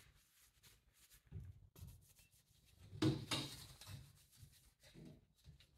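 Faint, intermittent rubbing and scraping of parts being handled, with one louder scrape about three seconds in.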